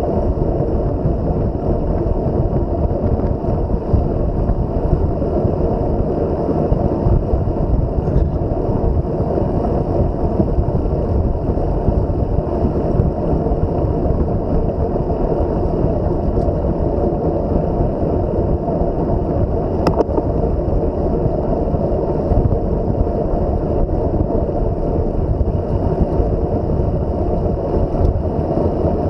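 Steady rush of wind buffeting the microphone, with tyre and road noise, from a camera carried on a bicycle riding at race speed.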